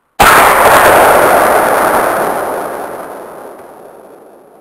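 .22 rifle shot, heard in slow motion: a sudden loud report just after the start, drawn out into a long boom that fades away over about four seconds.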